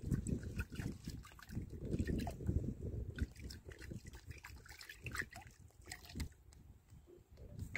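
Water sloshing as a hand stirs it around in a plastic drum, mixing pesticide into the spray water; near the end a small cupful is poured back in with a trickle and splash.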